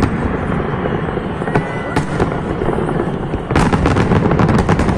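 Fireworks display: aerial shells bursting with continuous bangs and crackling. The cracks thin out for a few seconds, then a dense rapid run of sharp crackles starts about three and a half seconds in.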